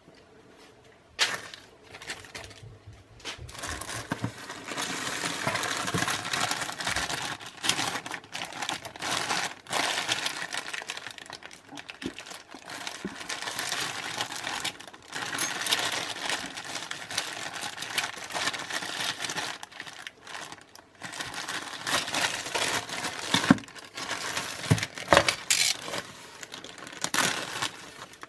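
Packaging crinkling and rustling as it is handled and pulled apart, with occasional sharp clicks and knocks.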